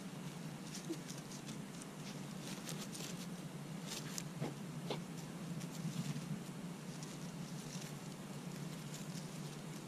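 Light rustling and scattered small ticks from a person's footsteps and a dog moving over dry grass and fallen leaves, over a steady low hum.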